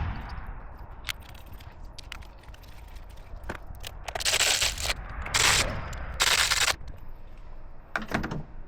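Hand work on the engine's coil-on-plug ignition coils: scattered sharp clicks and rattles of tools and parts. A little past the middle come three short, loud rasping bursts.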